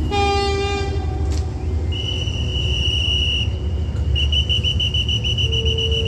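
A train horn sounds a short toot, then a hand whistle is blown twice: first a steady high blast, then a trilling blast near the end. A diesel train's engine rumbles low and steady underneath.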